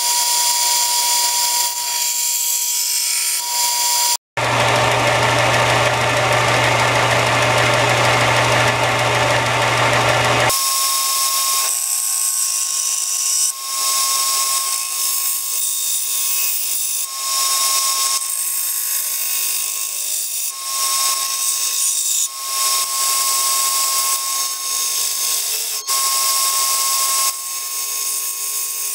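Benchtop belt sander running with a steady high whine over the hiss of the moving belt, while a wooden handle scale is sanded against it near the end. About four seconds in, the sound drops out briefly. A louder, coarser grinding noise with a deep hum follows for about six seconds before the steady whine returns.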